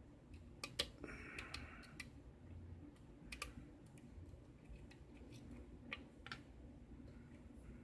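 Faint, scattered clicks of a lock pick and tension wrench working the pins of a five-pin tumbler lock, with a brief scrape about a second in, as the lock is single-pin picked over from the start.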